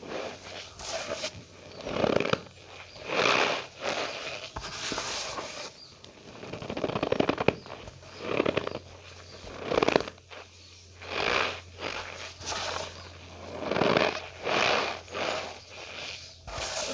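Cornstarch powder being squeezed and pressed by hand, giving squeaky, crunchy strokes at an uneven pace of roughly one a second.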